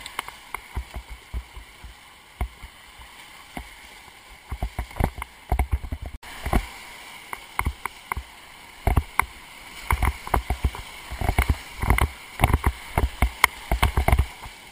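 Whitewater rapid rushing around a kayak, with frequent sharp splashes and slaps of water close by. The splashes come thicker and louder from about halfway through, as the boat runs into the breaking waves.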